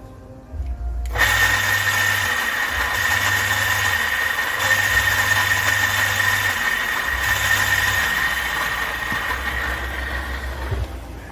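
Electric motor of a domestic water pump running with a steady high whine over a rushing hum. It starts about a second in and cuts off near the end.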